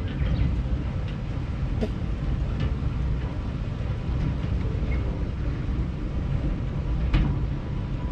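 Auto chair ride running along its track: a steady low rumble with occasional light clicks, and two sharper clacks, one about two seconds in and one near the end.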